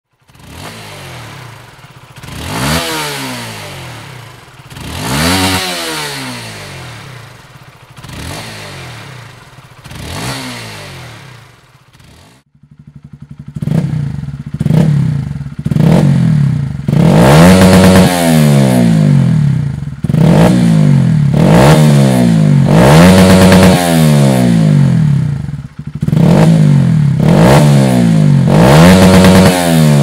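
Honda CBR125R's 125 cc single-cylinder engine revved at standstill in repeated throttle blips, each rising and falling in pitch. About four softer blips come first; from about twelve seconds in, the blips are much louder and closer together, through a Dominator HP3 full exhaust system.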